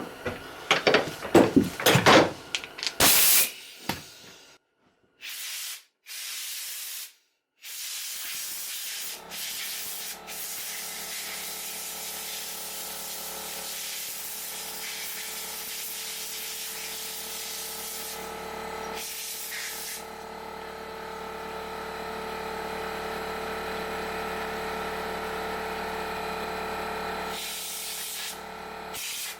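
Compressed air from an air compressor blow gun blasting sawdust out of the inside of a chainsaw: a few short blasts, then a long steady hiss from about eight seconds in. A few knocks of the saw and tools being handled come at the start.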